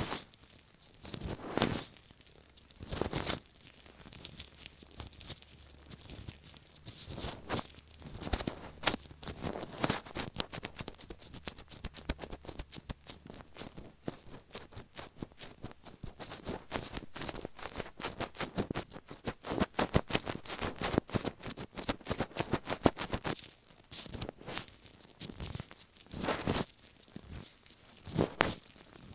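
Latex-gloved fingers tapping and rubbing right on an earphone microphone, making close, crackly taps and sticky rustles. A few separate strokes at first give way to fast, continuous tapping and rubbing, which thins back out to single strokes near the end.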